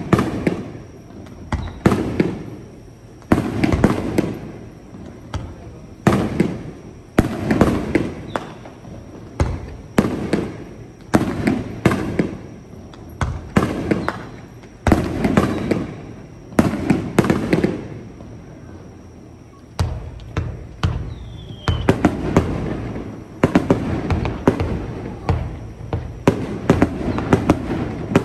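Fireworks shells bursting overhead one after another, a sharp bang about once a second, each trailing off in a low rolling rumble. From about twenty seconds in the bangs come faster and overlap.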